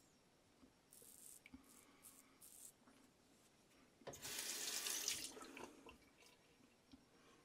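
A few short scrapes of a vintage straight razor across lathered stubble, then a tap runs for nearly two seconds a little past halfway, with a steady rush of water.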